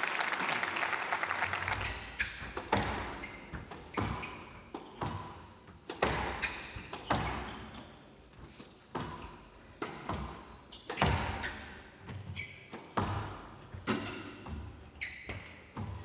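Squash rally: the ball cracking off rackets and the front wall, sharp hits about once a second echoing in the hall.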